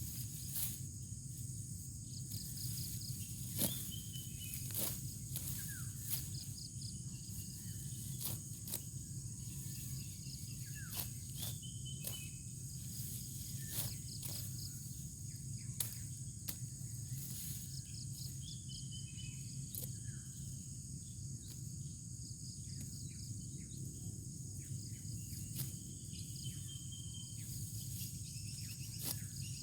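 Outdoor rice-field ambience: a steady high insect drone with scattered short bird chirps, over a steady low hum, and frequent sharp clicks and rustles throughout.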